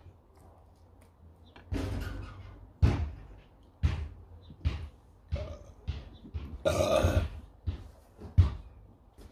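Tableware being used during a meal: a string of short knocks and clinks of cutlery and food on plates and the table, with a longer rasping sound about seven seconds in.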